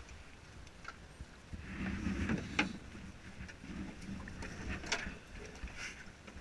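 Water lapping against the side of a drift boat, with several sharp knocks and clicks of gear against the hull.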